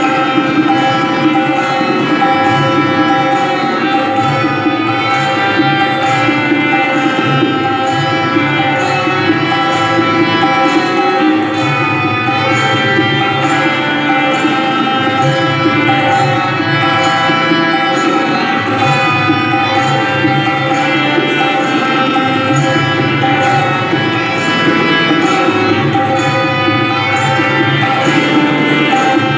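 Tabla played in a steady rhythm over a continuous melodic accompaniment with sustained tones, with deep bass-drum strokes coming and going.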